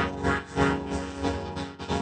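Children's song music run through a vocoder effect, with a plucked, guitar-like accompaniment and a steady beat.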